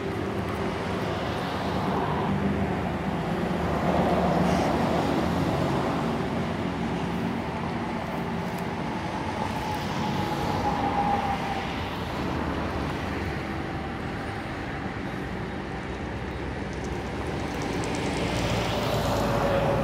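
Steady road traffic with engines humming, swelling now and then as vehicles pass. Under it runs a whine that slowly falls in pitch, from the CFM56 jet engines of a Boeing 737-800 flying over on its approach.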